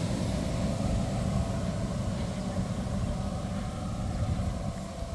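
Inflatable bounce house blower running steadily, a low rumbling drone that keeps the bounce house inflated.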